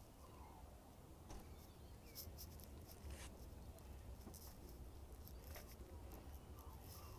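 Near silence: a faint low rumble with a few soft clicks scattered through, and faint bird calls in the background.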